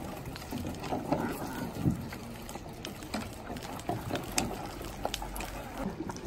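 Wooden boats being poled on a river: water lapping and sloshing around the hulls, with scattered sharp clicks and knocks.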